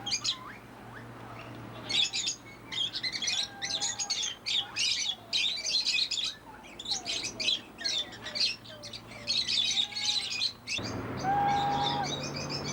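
Many small birds chirping and twittering in rapid, overlapping bursts, with occasional short, lower whistled notes among them.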